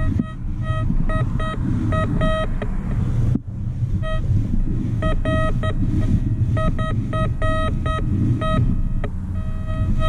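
Metal detector giving short, same-pitched beeps in irregular clusters as it passes over targets, over a low steady rumble.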